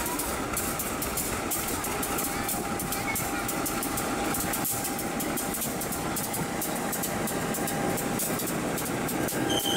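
KAI diesel locomotive rolling slowly past close by, hauling open freight wagons: a steady engine drone under the clicking of wheels on the rails, with a faint steady whine.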